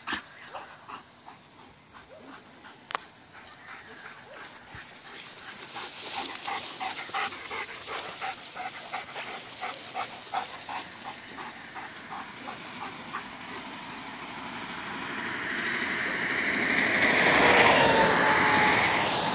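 A dog panting in quick, even breaths, about three a second, then a rushing noise that swells to its loudest near the end and eases off.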